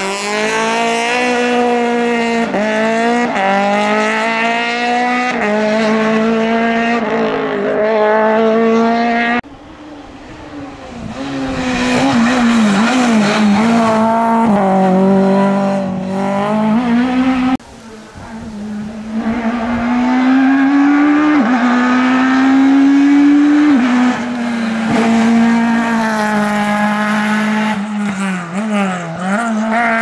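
F2000-class front-wheel-drive rally cars at full race pace, one after another. Each high-revving engine climbs in pitch, drops at each gear change and lifts off for corners, with abrupt changes from one car to the next twice.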